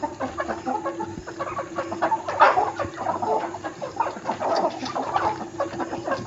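Several chickens clucking, many short overlapping calls, with one louder call about two and a half seconds in.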